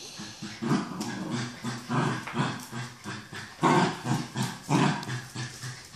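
Two small terriers, a Jack Russell and a Lakeland terrier puppy, growling in play as they tussle over a toy: a string of short growls, loudest about two-thirds of the way through.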